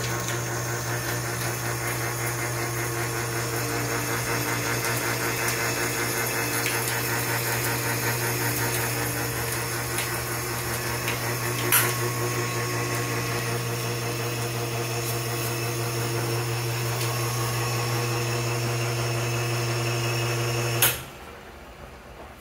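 A two-group commercial espresso machine's electric pump motor running with a steady hum while water runs through both group heads, with a click about twelve seconds in. Near the end it shuts off abruptly with a click.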